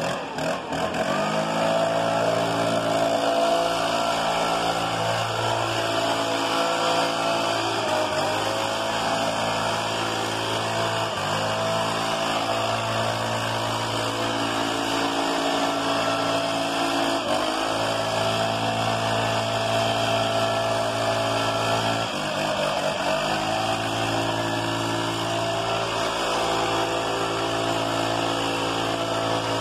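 Stihl BR 600 backpack blower's 4-MIX engine running, its pitch dipping as the throttle is eased off and rising again several times, with air rushing from the blower tube.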